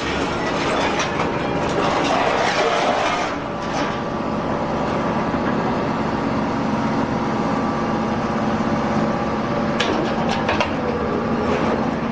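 Hydraulic scrap metal baler running: a steady hum from its hydraulic power unit under a dense din of scrap metal clanking and rattling, with sharper metal knocks in the first few seconds and again near the end.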